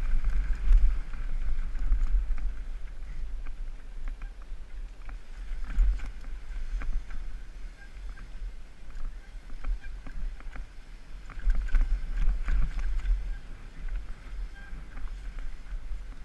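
Wind rumbling on an action camera's microphone during a fast downhill mountain-bike descent, with knobby tyres rolling over dry dirt and loose rock. Scattered sharp clicks and rattles come from the bike over bumps.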